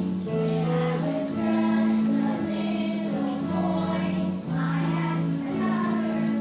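Singing with musical accompaniment, the held notes changing every second or so.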